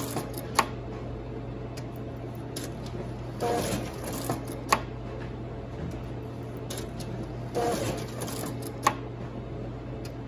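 Color printer running, with a steady motor hum, and feeding out menu prints about one sheet every four seconds. Each sheet comes with a short papery swish as it is ejected into the tray, followed about a second later by a sharp click.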